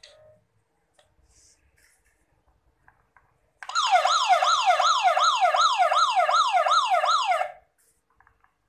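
Electronic siren sound effect from a children's ride-on toy motorbike, set off by a button on its panel. It is a fast, repeating wail of about three sweeps a second that starts about three and a half seconds in and stops about four seconds later.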